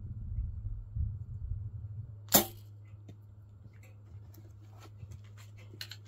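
Compound bow being shot: one sharp, loud snap of the string and limbs at the release, about two seconds in.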